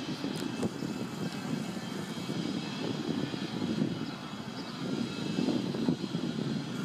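Wind buffeting the microphone, a low rumble that swells and eases in gusts.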